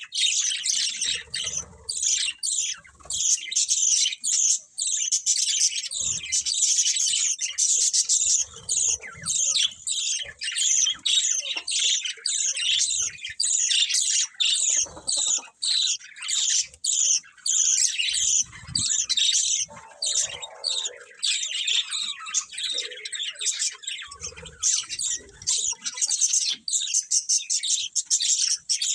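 Budgerigars chirping and chattering continuously, a dense run of rapid high chirps and warbles from several birds. There are a few soft low thumps.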